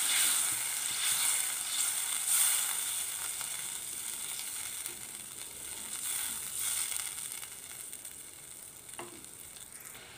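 Masala gravy thinned with water, sizzling and bubbling in a pan while a spatula stirs it. The sizzle is loudest at first and fades gradually as the gravy settles toward the boil.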